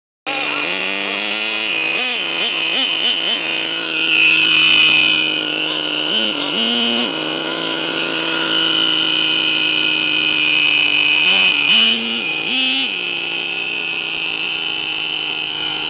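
HPI Savage X nitro RC monster truck's small glow engine running with a steady high-pitched drone, its revs rising briefly a few times as the throttle is blipped.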